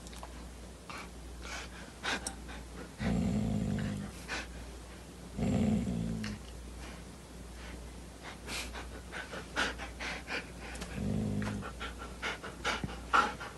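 A dog panting and snuffling, with three short low-pitched sounds from it about three, five and a half and eleven seconds in.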